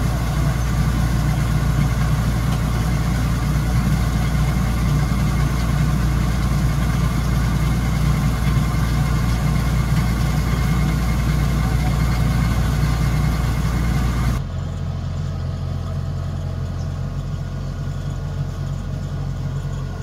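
Kubota DC-105X combine harvester's diesel engine running at a steady speed. About fourteen seconds in the sound drops abruptly, leaving a quieter, duller engine hum.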